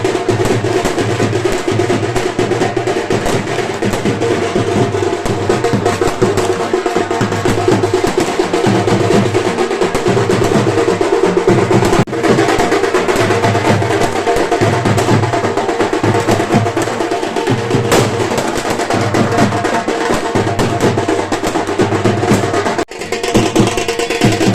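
Loud music driven by drums and percussion with a steady beat; it cuts out for an instant twice, about halfway through and near the end.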